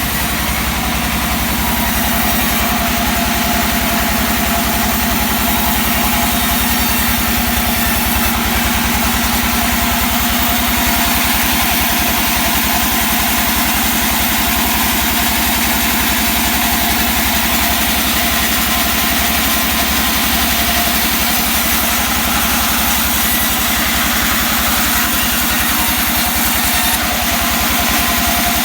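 A sawmill's engine running steadily at an even speed, with no clear change in load.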